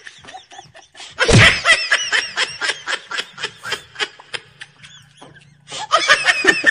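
A woman laughing in quick repeated bursts: a long fit starting about a second in that trails off, then a fresh burst near the end.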